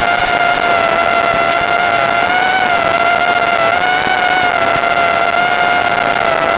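Small FPV quadcopter's brushless motors and propellers whining steadily in flight, the pitch wavering a little up and down with the throttle.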